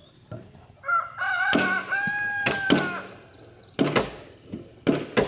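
A rooster crowing once, a long call lasting about two seconds, followed by three sharp knocks, wood being struck.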